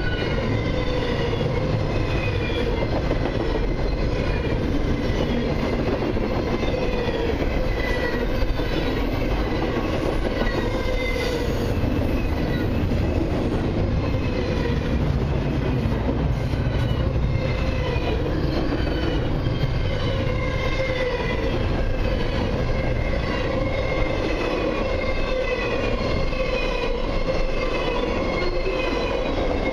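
Double-stack intermodal well cars of a freight train rolling past close by: a steady rumble of steel wheels on the rails, with short high-pitched wheel squeals recurring throughout.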